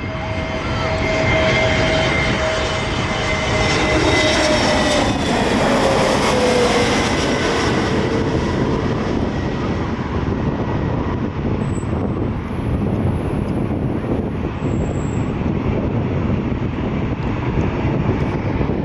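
Jet aircraft passing close by: a loud, steady engine rumble with a whining tone that drops in pitch about five seconds in as the plane goes past.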